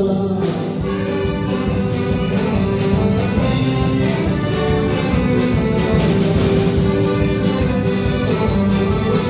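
Live folk dance band playing a dance tune with a steady beat, drum kit keeping time.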